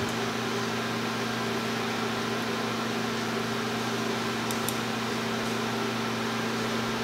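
Steady electrical hum with a background hiss, and a faint computer-mouse double-click about four and a half seconds in.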